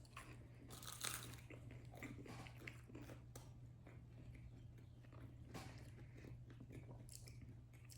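Faint chewing and biting of food close to the microphone: scattered soft crunches and clicks over a steady low hum.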